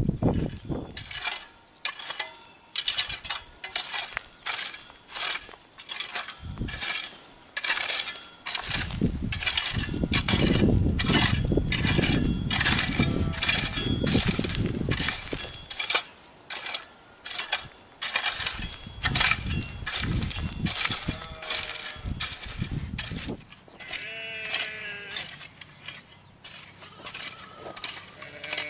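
A long run of sharp clicks or knocks, about two a second, with a low rumble under them for stretches. Near the end a sheep bleats.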